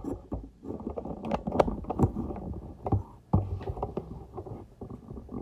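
Irregular knocks, clicks and bumps of things being handled and set down, over rumbling, muffled handling noise on the microphone.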